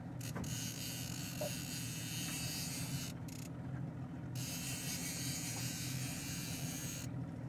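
Boat motor running with a steady low drone, under an even hiss of wind and water.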